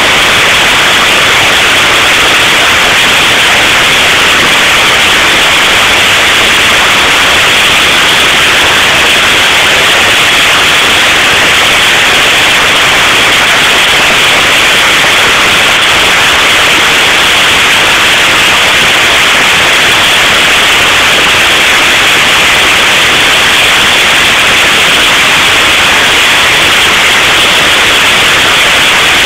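Heavy hailstorm: hailstones and rain pelting the ground and surrounding surfaces in a loud, steady hiss without a break.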